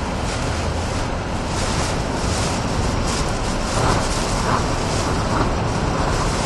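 Hurricane Katrina's hurricane-force wind and driving rain, with heavy wind buffeting on the microphone. A few louder gusts come about four to five and a half seconds in.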